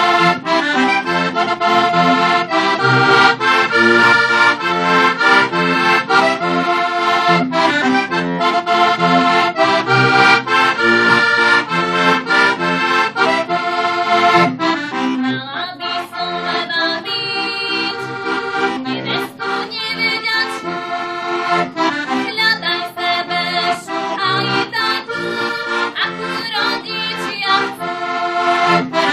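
Heligonka, a Slovak diatonic button accordion, playing an instrumental folk tune over a repeating bass-and-chord pattern. It plays more softly for several seconds in the middle.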